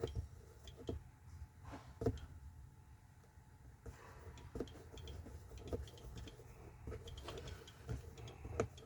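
Scattered light clicks at irregular intervals, most likely the buttons of a soldering station being pressed to set its temperature.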